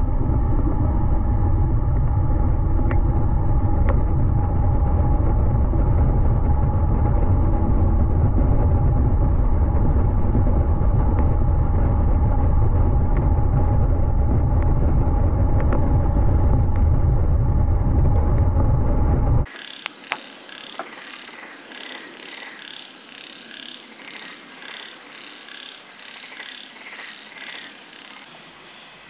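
Road noise recorded under a moving car beside the rear wheel: a loud, steady rumble of tyres on the road with wind buffeting and a steady hum. About twenty seconds in it cuts off suddenly to a quiet outdoor night where frogs call in a rhythmic, pulsing chorus, with a couple of clicks.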